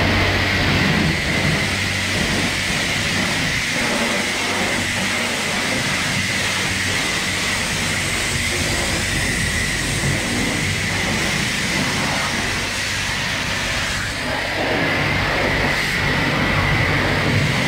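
High-pressure car wash wand spraying water onto a car: a steady loud hiss of the jet and spatter, with a low hum underneath. The hiss thins briefly about fourteen seconds in, then picks up again.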